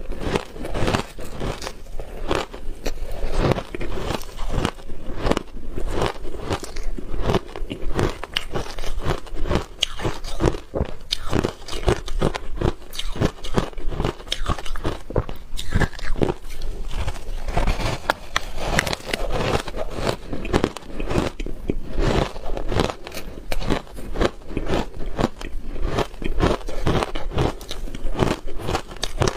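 Someone biting and chewing a chunk of hard ice: a steady run of sharp, irregular crunches and crackles, several a second.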